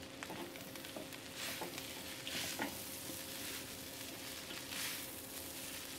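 Stir-fried Hakka noodles sizzling in a large steel wok as they are rapidly tossed with two spatulas. The sizzle swells in waves each time the noodles are lifted and dropped, with light taps of the spatulas against the wok.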